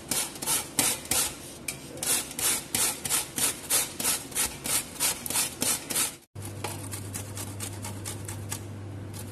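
Cauliflower being grated on a stainless-steel box grater: quick rasping strokes, about two or three a second. About six seconds in the sound cuts out briefly, then fainter scraping follows.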